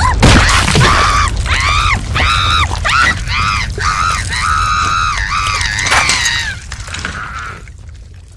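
A crash, then a high-pitched cartoon voice crying out in a string of rising-and-falling wails that fade away near the end.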